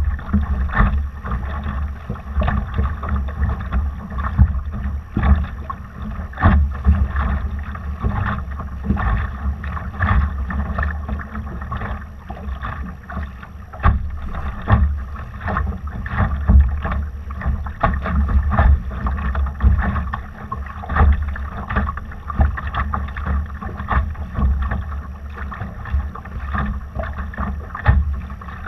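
Water splashing and slapping irregularly against a Laser dinghy's hull under sail, with wind buffeting the microphone.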